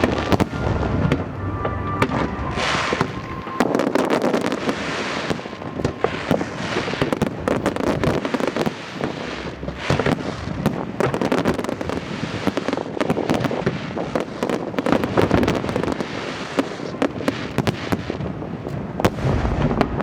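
Fireworks display: many sharp bangs and crackles going off in rapid, irregular succession, with music playing underneath.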